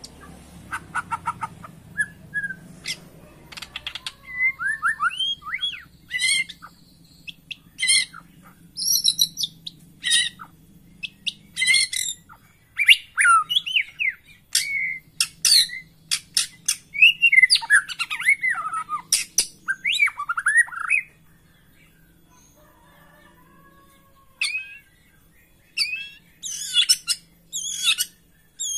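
White-rumped shama (murai batu) singing a loud, varied song of whistled gliding phrases, rapid chirps and sharp high notes. It falls silent for about three seconds late on, then starts singing again.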